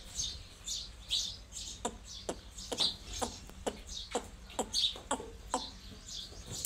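Small birds chirping, a quick run of short, high chirps and sharp clicks, a couple a second, over a faint low rumble.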